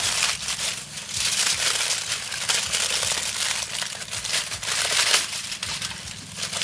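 Aluminium foil crinkling and crackling as gloved hands press and fold it into a flat parcel, a continuous run of crackles that swells and eases in spells.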